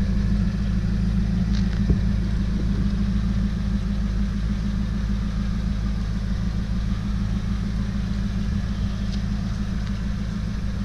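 2001 Corvette Z06's LS6 5.7-litre V8 idling steadily through a Borla aftermarket exhaust, a low, even note.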